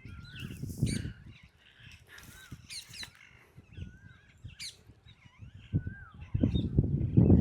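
Several wild birds calling: a scatter of short whistled chirps and slurred notes, with a couple of shrill high sweeping calls in the middle. A loud low rumbling noise comes in near the end.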